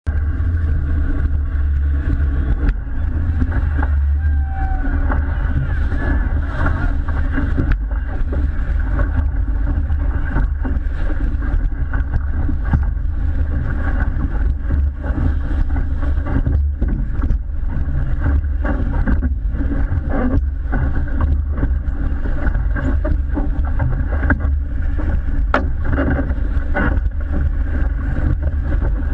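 Motorboat engine running steadily, with scattered short knocks over it.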